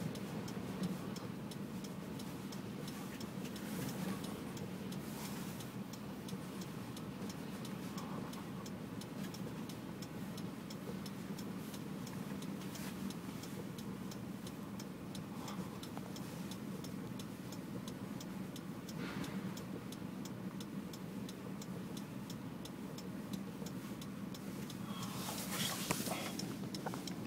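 Car running, heard from inside the cabin, with a steady hum and a fast, even ticking throughout. A louder rush of noise comes near the end.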